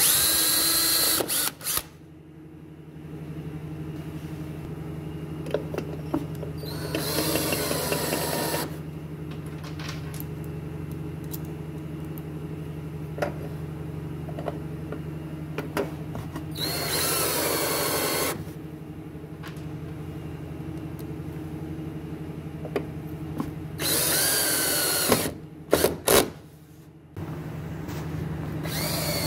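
Cordless drill/driver running in short runs, drilling pilot holes and driving screws into a pine drawer front to mount metal handles. There are about four runs of one to two seconds, each with a whine that rises as the motor spins up, then a few quick bursts near the end, over a steady low hum.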